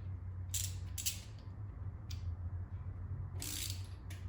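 A few separate metallic clicks and clacks from the small ratchet head of a torque wrench being handled and fitted, over a steady low hum.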